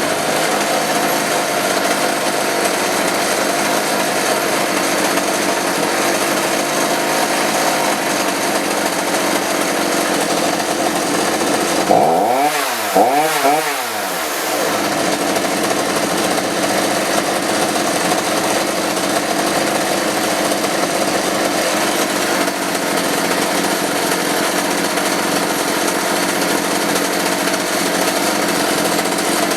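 Homelite 3514C two-stroke chainsaw engine running steadily, fitted with a new spark plug. About twelve seconds in it is revved twice in quick succession, its pitch rising and falling back each time.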